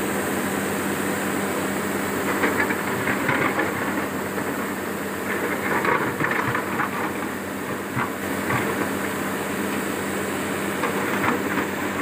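XCMG XE210i hydraulic excavator's diesel engine running steadily, with several bursts of rock scraping and clattering as its steel bucket digs into loose red rocky overburden.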